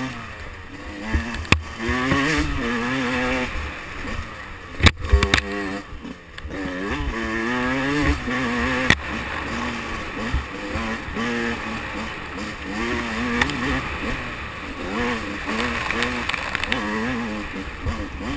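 2005 Yamaha YZ125's single-cylinder two-stroke engine revving up and down, its pitch rising and falling with each twist of the throttle as the bike is ridden, with a few sharp knocks along the way.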